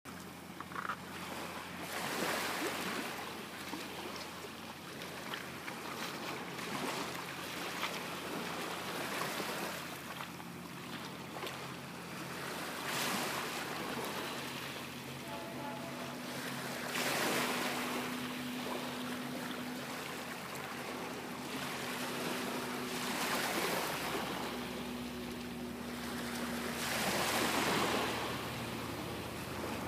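Small waves washing onto a pebble beach, the surf swelling and fading every three to four seconds. A low rumble builds in the last few seconds as a train approaches.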